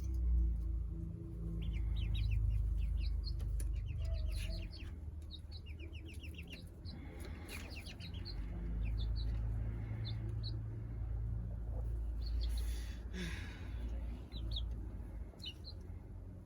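Young chickens peeping: many short high chirps, some in quick runs, over a low steady rumble, with a brief rustle near the end.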